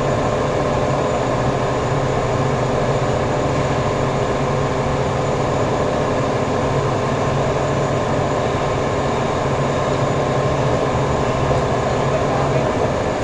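Workshop machinery running steadily: an even mechanical hum with several steady tones, and a low part of it stops shortly before the end.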